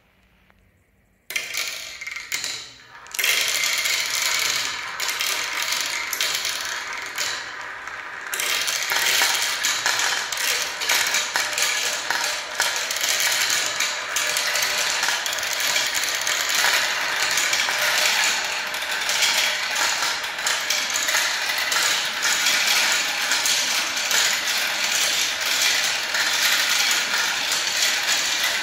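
A handful of small plastic balls clattering and rolling through a plastic marble run's tubes, tracks and bowls, a dense continuous rattle of many clicks. It starts about a second in and grows fuller a few seconds later.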